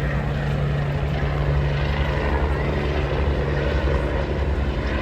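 Aircraft engine running steadily, a low droning hum over a rush of noise.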